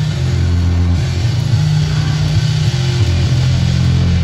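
A band playing loud, steady live music, dominated by a heavy, sustained bass line under electric guitar.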